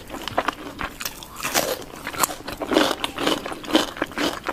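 Close-miked eating: a run of crunchy bites and chewing, many short crackly crunches in quick succession.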